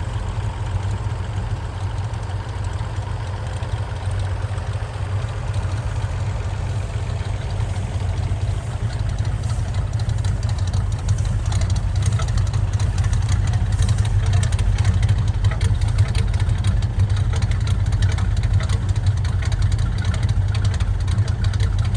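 1968 Chevrolet K20 pickup's engine running steadily at low speed, getting a little louder about halfway through, with scattered clicking and crackling over it in the second half.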